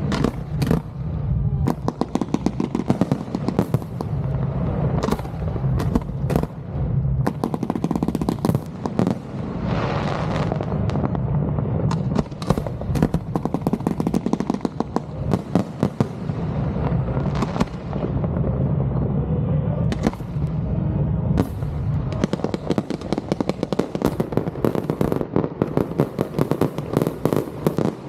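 Fireworks display: a continuous barrage of bangs and rapid crackling, many bursts overlapping each second.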